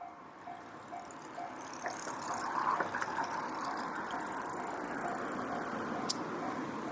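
Japanese railway level-crossing warning bell clanging about twice a second. From about two seconds in, a passing train's running noise rises and covers it.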